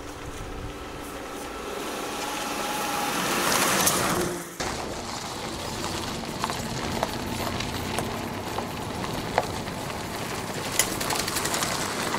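An SUV driving on a dirt and gravel road: engine and tyre noise growing louder as it approaches, cut off suddenly about four and a half seconds in. Then steady tyre noise on gravel with scattered sharp clicks of stones.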